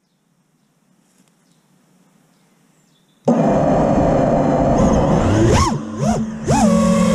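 Racing-drone (FPV miniquad) brushless motors and propellers, heard from the onboard camera. They start suddenly a few seconds in and run with a steady whine, then are throttled up and down twice, the pitch swooping up and falling back, as the quad lifts off.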